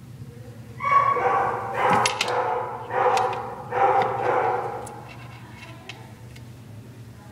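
Kitten crying out during rough play: four loud, drawn-out mews in a row, starting about a second in.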